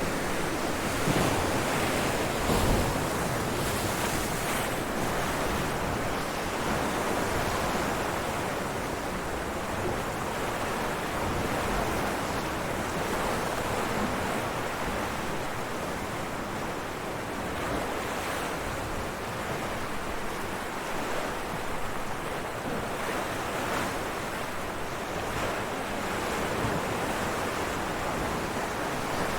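Ocean waves breaking on rocks: a continuous rushing surf, with two slightly louder surges in the first few seconds.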